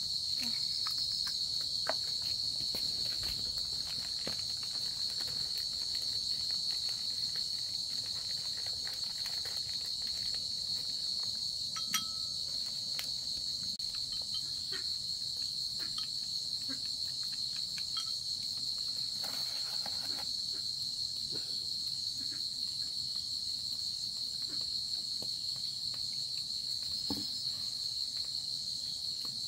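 Steady, shrill chorus of insects droning without a break, with a few faint scattered knocks and taps.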